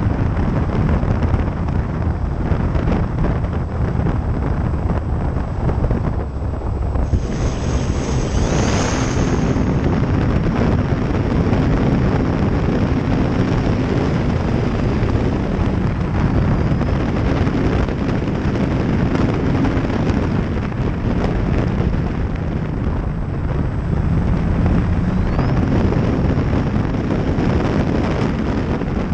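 Wind buffeting the onboard microphone of an RC plane in flight, with the plane's electric motor and propeller droning underneath, the pitch shifting as the throttle changes.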